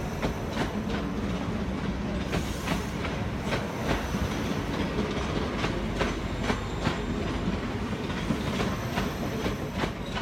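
A two-unit ScotRail Class 334 electric multiple unit departing and passing close by. Its wheels clack over the rail joints in an irregular run of sharp clicks over a steady running hum.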